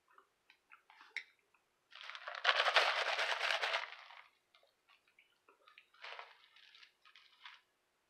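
Soft mouth clicks from chewing, then a loud crackly rustle lasting about two seconds as a foam drink cup is handled close to the microphone, followed by a few short sips from the cup.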